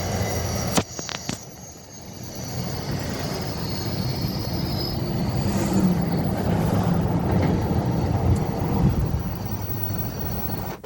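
Passing train: steady rail and engine noise, broken by a sharp click and a sudden drop about a second in, then building up again to its loudest in the second half.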